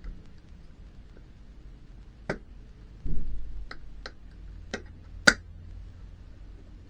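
Sharp plastic clicks, about five spaced over a few seconds, with the loudest near the end, as the plastic parts of a 2019 Ram Heavy Duty instrument cluster are pressed together and latch into place. There is a low bump about three seconds in.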